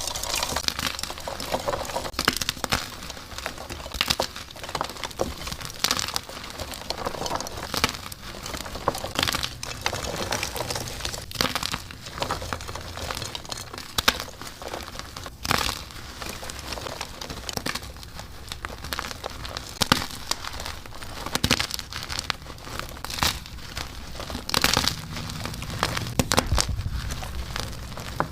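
Blocks of dyed and reformed gym chalk being crushed and crumbled by hand in a continuous run of dry crunching and crackling, with sharp cracks standing out every second or so.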